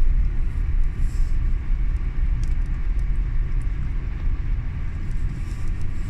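Steady low rumble of a car driving slowly over a snow-covered road, heard from inside the cabin, during a momentary lull in the blizzard wind.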